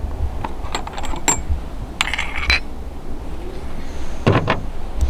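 Small metal clicks and a brief scraping rattle as CO2 cartridges are fitted into a BB gun's cartridge holder. There are a few light clicks in the first second and a half, a short rattle around two seconds in, and two sharper clicks near the end.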